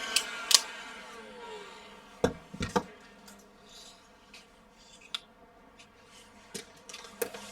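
Scattered sharp clicks and knocks of tools being handled and set down, about eight in all, with a cluster a little over two seconds in and another near the end, over a faint steady hum.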